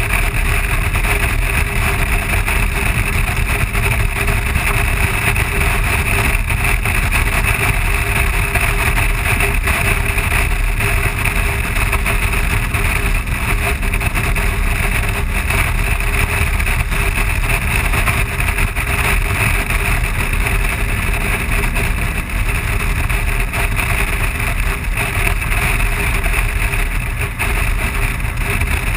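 Steady wind and road noise of a BMW R1200GS motorcycle cruising at an even highway speed, with the engine's low drone underneath and wind buffeting the camera's microphone.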